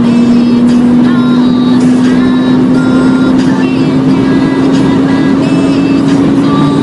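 A modified BMW 135i's turbocharged inline-six accelerating hard at over 200 km/h, its note rising slowly and steadily as the car pulls through one gear, heard from inside the cabin over a loud rush of wind and road noise.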